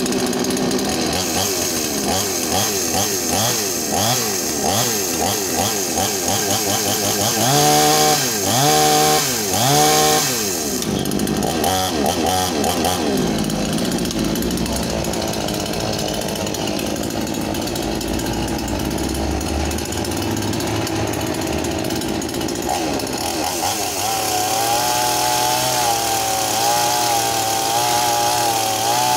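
Gilardoni GDCS58 58 cc two-stroke chainsaw running just after starting, its speed wavering at first. About eight seconds in it is revved three times in quick succession, with more blips soon after. It then runs steadily and, in the last few seconds, is held at a higher, steady speed.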